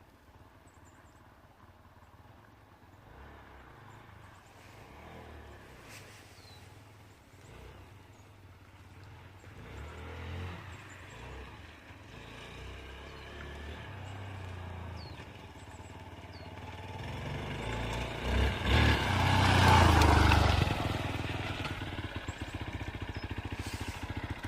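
Hero XPulse 200 dirt bike's single-cylinder engine, faint at first and growing louder with rising and falling revs. It is loudest about 19 to 20 seconds in, then keeps running steadily and fairly close.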